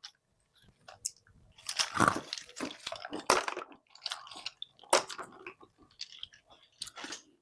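In-shell macadamia nuts clattering as they are poured and handled, in irregular bursts of rattling with short gaps between.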